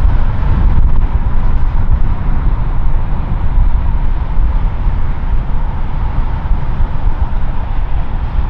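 Twin-engine jet airliner climbing out after takeoff: a steady, loud engine rumble with a faint steady whine above it.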